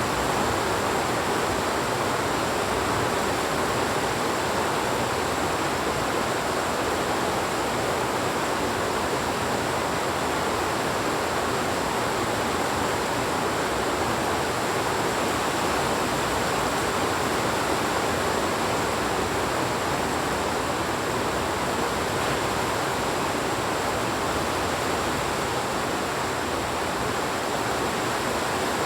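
Heavy rain falling steadily: an even rushing hiss with no breaks or lulls. A faint, steady, high-pitched tone runs under it.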